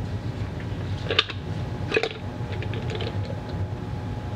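Greasy steel planetary gears and the gear housing of a Warn M8000 winch clicking and clacking against each other as the gear set is pulled apart by hand: two sharper clacks about one and two seconds in, then a run of lighter clicks.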